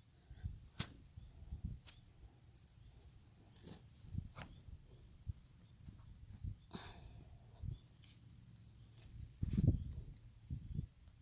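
Crickets trilling high-pitched in on-and-off stretches, over soft thuds and rustles of hands digging potatoes out of a container of soil.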